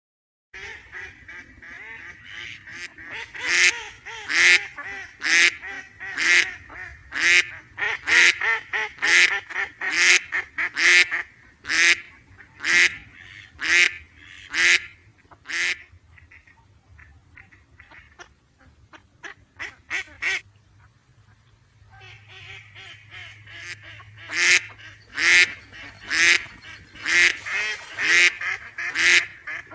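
Duck quacking repeatedly, about one to two quacks a second; the calls fade to fainter ones around the middle, then come back loud a few seconds later.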